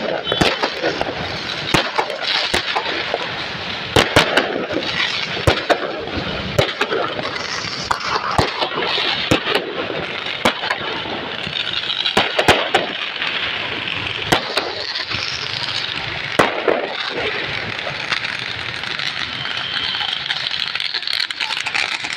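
Fireworks going off: irregular sharp bangs and cracks over a dense crackling hiss from ground fountains spraying sparks. The cracks thin out past the middle and the hiss carries on.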